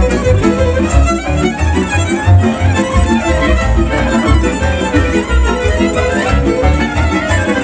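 Live Hungarian folk band music: a fiddle leads the tune over cimbalom and double bass, with the bass marking a steady pulse underneath.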